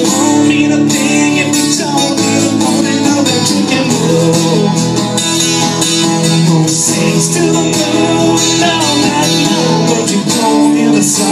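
Acoustic guitar playing a steady instrumental passage of a country-style song, performed live with no sung words.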